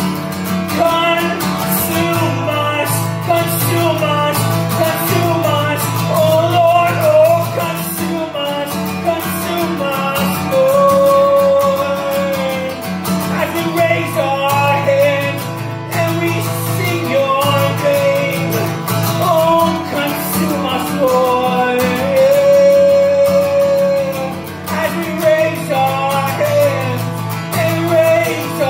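Acoustic guitar strummed steadily under a man's singing voice holding long, drawn-out notes: a live worship song.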